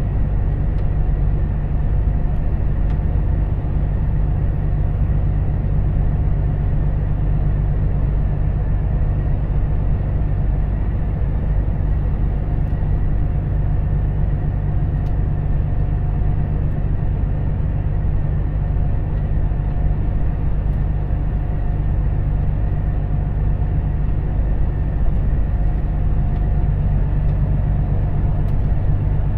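Cab interior of a Volvo FH 460 truck cruising steadily at about 80 km/h. The 13-litre straight-six diesel gives a low, even drone, mixed with tyre and road noise and a faint steady whine above it.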